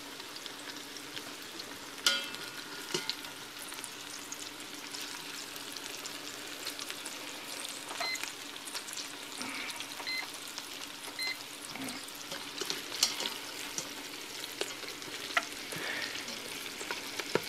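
Meatballs sizzling as they sear in olive oil in the hot stainless steel pot of an electric pressure cooker on its sauté heat. Now and then a plastic spoon clicks and scrapes against the pot as they are stirred and turned.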